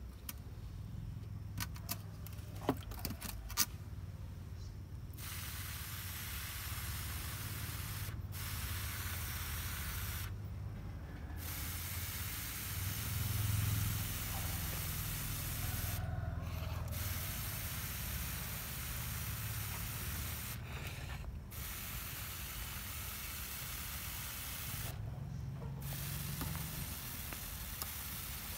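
Hand-pump pressure garden sprayer spraying water from its brass nozzle onto potting soil as a steady hiss. The hiss cuts out briefly five times and starts again. A few sharp clicks come in the first few seconds, before the spraying begins.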